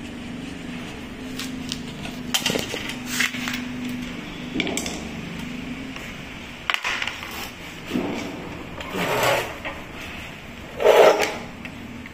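Metal hand tools clicking, clinking and scraping against the housing of a Makita LW1401 cut-off saw during repair, over a low steady hum in the first half. A louder, short rasping burst comes near the end.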